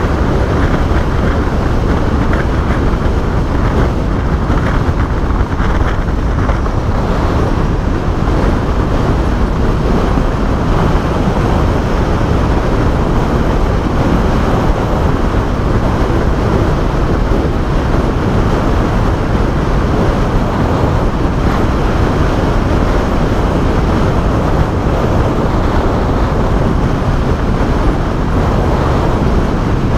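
Motorcycles running at highway speed, heard from a moving bike: a steady, dense rush of wind, engine and road noise with no breaks or changes.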